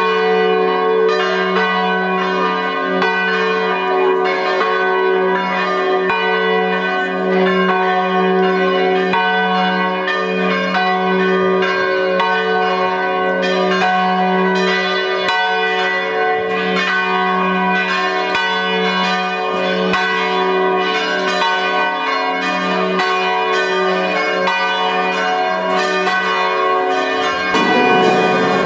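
Church bells ringing a continuous peal, strikes following one another several times a second over their lingering tones.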